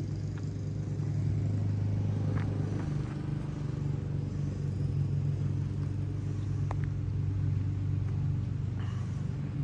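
Lawn mower running steadily in the background, a low even hum, with a couple of faint clicks.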